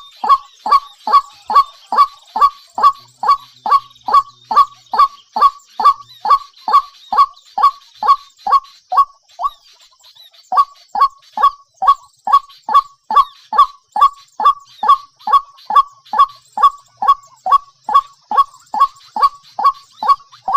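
A bird calling over and over in a fast, even series of short honking notes, each falling in pitch, about two a second, with one short break about halfway through.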